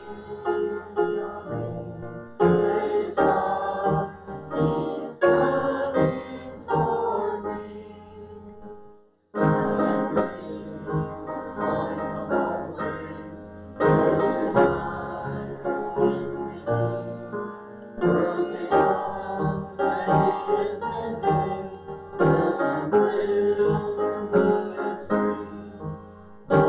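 Church hymn with singing and instrumental accompaniment, in phrases of a few seconds, with a short break about nine seconds in.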